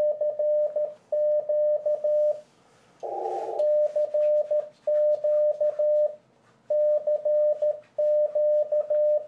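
Icom IC-7300 transceiver's CW sidetone, one steady beep keyed in Morse code, sending the stored keyer-memory message 'CQ CQ CQ DE WB5YBZ WB5YBZ K' in word groups with short pauses between them. A brief burst of hiss breaks in about three seconds in.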